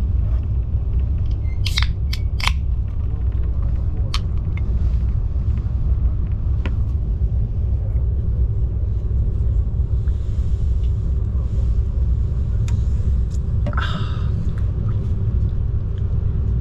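Steady low rumble inside a moving vehicle, with a few sharp clicks about two and four seconds in and a brief rustle near the end.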